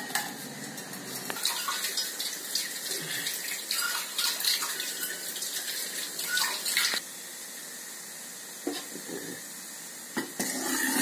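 Jaggery syrup boiling hard in an aluminium kadai, frothing up: a steady bubbling hiss with many small crackles.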